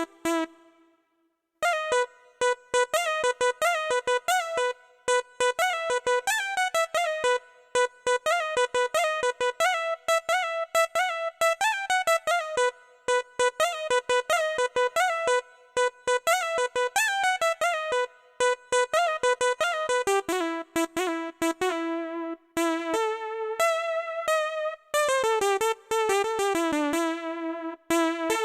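Electronic keyboard playing a solo cumbia lead melody in quick notes with vibrato, without drums or bass; it stops for about a second just after the start.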